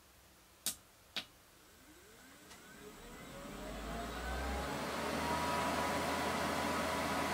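Two clicks of the FAM100 fume absorbing module's main button, then its extraction fan starts up: a whine rising in pitch and a growing rush of air that levels off into a steady run after a few seconds.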